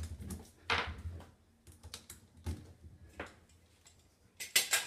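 Scattered light clicks and taps from a metal radiator bracket and plastic wall fixings being handled and pressed against a wall. A few single clicks come spread out, then a quicker, louder cluster near the end.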